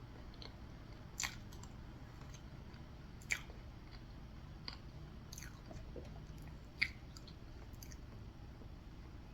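A person eating soft cake close to the microphone: faint chewing, with about five sharp mouth clicks or smacks spread through it.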